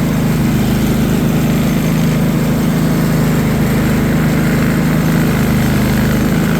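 Predator 3500 inverter generator's single-cylinder engine running at a steady speed, now starting and running on a fresh NGK BPR6ES spark plug in place of the original plug.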